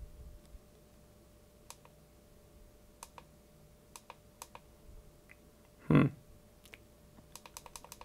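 Small plastic clicks from the power switch on a PCIe riser board being pressed again and again with no response, ending in a quick run of clicks; the board stays dead because the PSU has not been switched on to give standby power. A short low vocal sound about six seconds in, over a faint steady hum.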